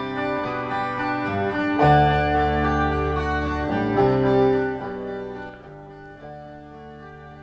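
Music played from a vinyl LP on a Pro-Ject Debut Carbon DC turntable with an Ortofon 2M Blue cartridge: plucked guitar chords with held notes, dropping sharply in level about five seconds in.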